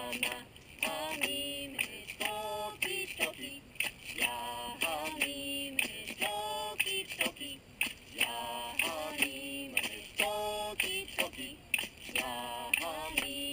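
A voice chanting in held, wavering notes, phrase after phrase with short breaks, and sharp clicks between the phrases.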